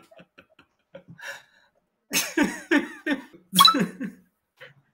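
A person coughing: faint short breaths, then a run of loud coughs from about two seconds in.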